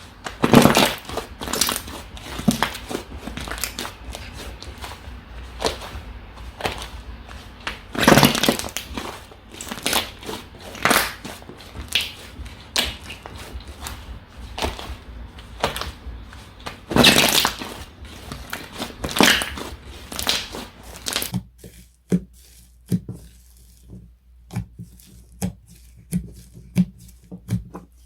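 Slime being squeezed and pressed by hand, giving repeated crackling, crunching squishes with a few louder crunches. About three quarters of the way through it turns quieter, with small quick clicks and pops.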